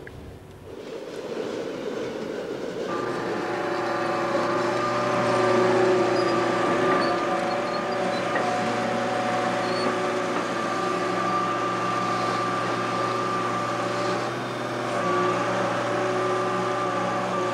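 Heavy construction machinery running: a steady engine drone with several held whining tones, swelling about three seconds in and dipping briefly near the end.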